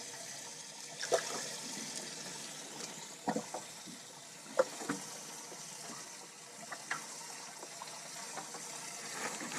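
Water steadily pouring and splashing into a bass boat's livewell, with a handful of short knocks and splashes as fish are handled.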